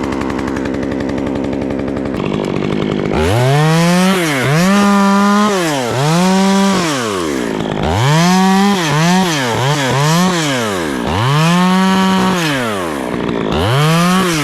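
Stihl two-stroke chainsaw idling steadily for about three seconds, then revved up and let back down again and again, about six times, as the throttle is squeezed in bursts.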